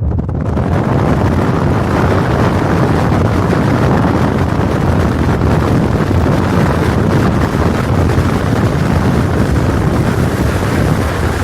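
Strong wind buffeting the camera's microphone: a loud, steady rumbling roar with no let-up.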